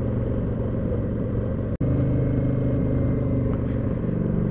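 Motorcycle engine running at a steady, even pitch while riding; the sound drops out for an instant about two seconds in.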